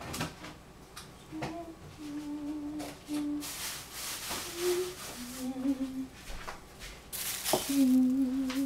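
Someone humming a slow tune in short held notes with pauses between them. Two bursts of rustling and a sharp knock near the end come as the plastic-wrapped bowl is handled and lifted.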